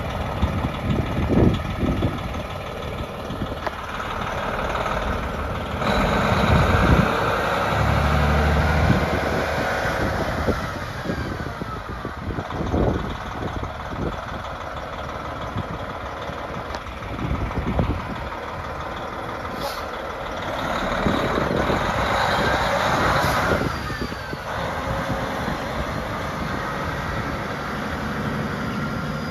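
The diesel engine of a 1999 Navistar Eagle semi truck running as the truck drives through a yard, growing louder and quieter in stretches as it pulls away and eases off.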